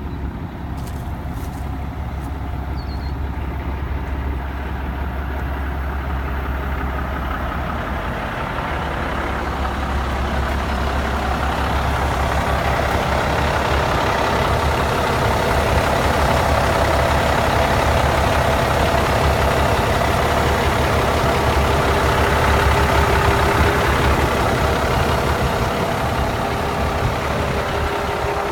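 Cummins 855 turbo diesel, an inline six, idling steadily with a constant low hum, getting louder about a third of the way in as the open engine compartment comes close.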